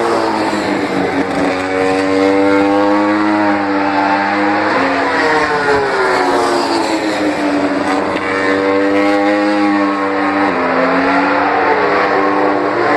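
MotoGP racing motorcycles passing at speed, one after another. Their high-revving engine notes climb and fall in pitch, dropping sharply about five and ten and a half seconds in.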